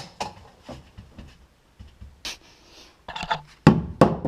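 Scattered knocks and clatter of tools and metal parts being handled, with a short hiss about two seconds in and a cluster of louder knocks near the end.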